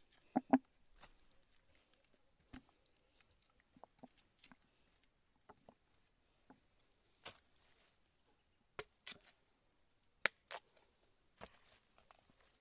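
Steady high buzz of insects, with a few sharp knocks scattered through, two of them in quick pairs past the middle, as ripe cacao pods are handled and split open with a bolo knife.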